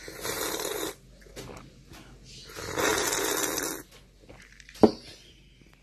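Two long, rasping snore-like breaths about two and a half seconds apart, then a single sharp tap near the end.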